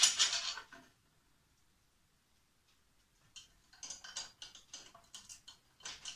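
Hands fiddling with a scroll saw's upper blade clamp and arm: a short rattle at the very start, then a quiet pause, then a run of small, irregular metal clicks and ticks from about three seconds in.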